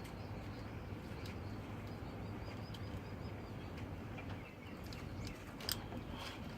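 Faint bird chirping, a quick run of small high chirps, over a steady low hum, with a few light clicks.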